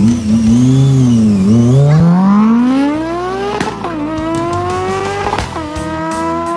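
An engine accelerating hard. At first its revs waver up and down, then the pitch climbs steadily and drops back twice, about three and a half and five and a half seconds in, like gear changes.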